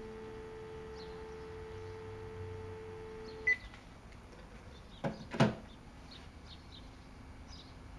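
Telephone dial tone, a steady low two-note hum, for about three and a half seconds. It ends in a short high beep as the cordless handset is switched off. About five seconds in come two quick knocks as the handset is set down.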